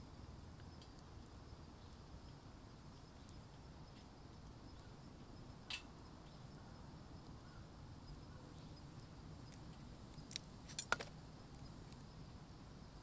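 Wood campfire burning quietly with a soft steady hiss, broken by sharp crackling pops: one about six seconds in and a quick run of three near the end, the last the loudest.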